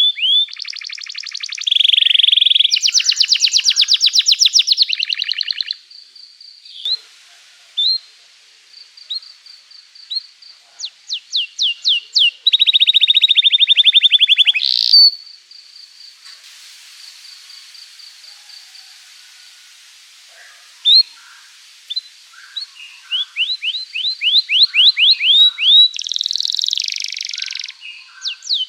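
Domestic canary singing: loud rolling trills of rapidly repeated notes, three times, with runs of quick downward-sweeping chirps between them and a faint, thin, steady high whistle in the quieter stretches.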